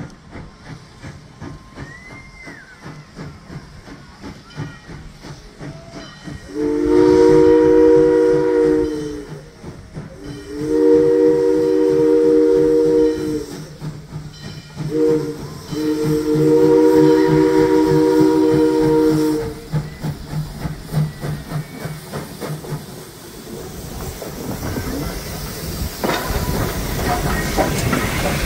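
Steam locomotive C.P.R. 2023's chime whistle sounding four blasts, long, long, short, long: the grade-crossing signal, over the steady rumble of the engine. Near the end a loud hiss of steam builds as the locomotive comes up close.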